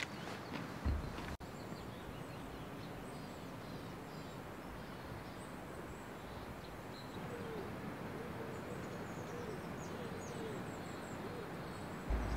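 Forest birds over a steady faint hiss: a low call that bends in pitch, repeated several times in the second half, with faint high chirps of small birds. A brief low bump about a second in.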